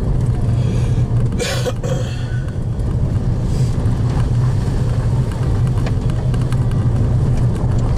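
Car engine running steadily as the car rolls along a dirt forest track, heard from inside the cabin, with tyre and road noise. A brief sharper noise stands out about a second and a half in.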